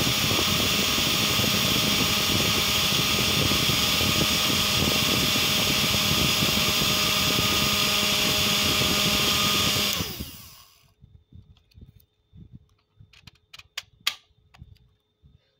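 Small electric fan motor in a toy air conditioner whirring steadily, then cutting out about ten seconds in and winding down within a second. A few faint plastic clicks follow near the end as the toy is handled.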